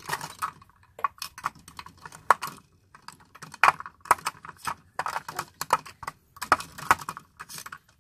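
Irregular clicking and clattering of plastic makeup cases and lipstick tubes being handled and sorted through on a table.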